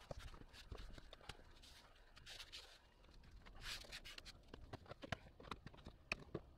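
Faint, scattered taps, knocks and brushing of a man handling a thin FRP wall panel and pressing and rubbing it against the shower wall inside a small stall.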